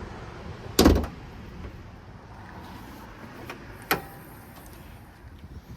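A loud thud about a second in, then a shorter sharp click near four seconds, over a steady low background noise, from the Ram 1500 pickup's body being opened up.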